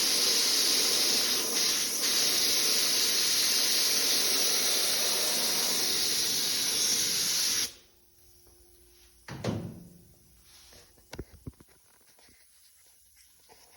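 Paint spray gun spraying single stage paint in a steady hiss that cuts off suddenly about two-thirds of the way in as the trigger is released. A thump and a few light clicks follow.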